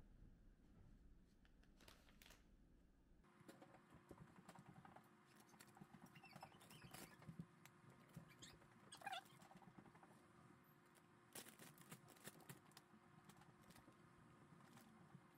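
Very faint rustling of plastic zip-top bags and scattered light clicks and taps as pieces of cooked chicken are placed into them.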